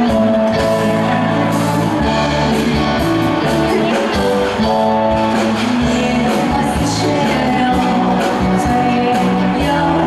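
A woman singing a Chinese-language pop song into a handheld microphone, amplified over a live band's accompaniment.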